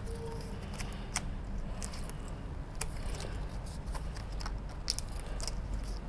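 Scattered light clicks and taps of paper picture cards being placed and pressed onto a whiteboard, over a steady low hum.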